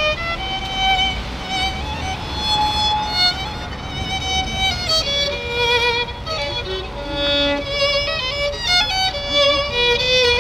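Solo violin played with the bow: a melody of held notes with vibrato, moving through quicker note changes in the middle, over a low street rumble.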